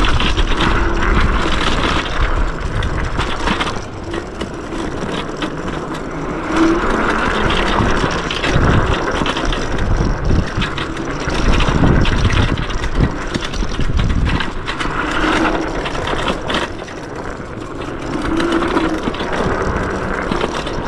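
Yume X11 electric scooter being ridden along a dirt trail: a loud, uneven rush of wind on the microphone and tyre and suspension rumble over the ground, swelling and easing every few seconds.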